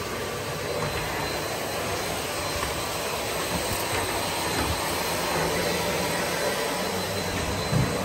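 Vacuum cleaner running steadily: an even rushing motor-and-air noise with a thin, constant high whine.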